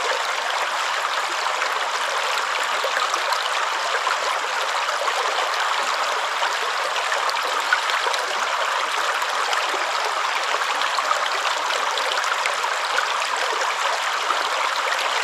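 Running water flowing steadily, an even rushing and splashing that keeps up without a break.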